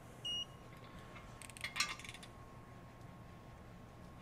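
A short electronic beep from a MATCO electronic torque wrench, then a quick run of metallic clicks and clinks as the ratchet head and socket are worked on and lifted off the bolt.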